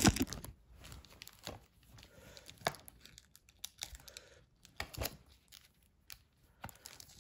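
Plastic shrink wrap on a DVD case being slit and torn open, crinkling in short bursts with scattered clicks and quiet gaps between.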